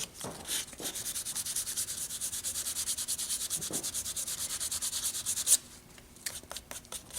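Hand sanding of cured leather repair filler on a bycast leather tear: quick back-and-forth rubbing strokes, several a second. They stop abruptly near the end, and a few slower, lighter strokes follow.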